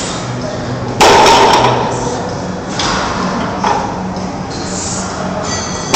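A loaded deadlift barbell, about 500 lb of black plates, thudding onto the rubber gym floor as it is lowered between pause reps. There is a loud thud about a second in, lighter knocks in the middle and another loud thud at the very end.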